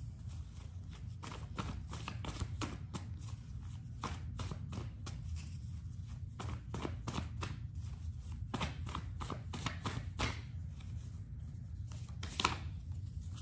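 A deck of cards being shuffled and handled by hand: a run of quick, uneven clicks, over a low steady hum.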